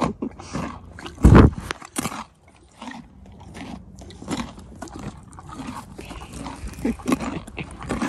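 Horse crunching a carrot close to the microphone: irregular crisp crunches and chewing, with one loud low blast of noise about a second in.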